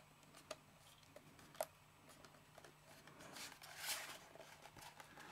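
Near silence with faint handling noise from the jump starter's plastic case: a few light clicks early on, then a soft rustle about three to four seconds in, over a low steady hum.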